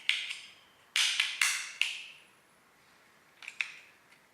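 Sharp plastic clicks and knocks in small irregular clusters as AAA batteries are fitted into a smart door sensor's battery compartment.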